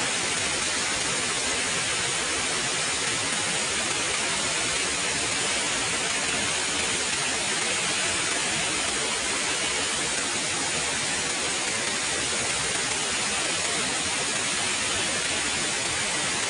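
Waterfall rushing: a steady, unbroken hiss of falling water with no change in level.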